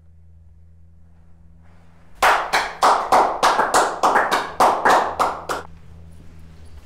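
One person clapping hands about a dozen times, a little over three claps a second. The clapping starts about two seconds in and stops suddenly after about three and a half seconds.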